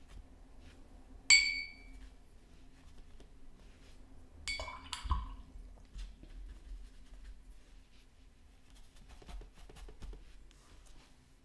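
Sharp clinks of small hard objects knocking together: one about a second in, the loudest, with a brief ring, then two more close together about four and a half and five seconds in.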